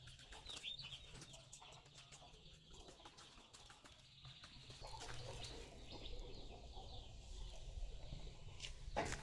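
Faint birds chirping with a few short high chirps, over low background noise, with scattered light clicks and one sharp knock near the end.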